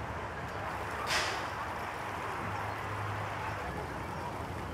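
Bison giving one short, breathy snort about a second in, over a steady outdoor background.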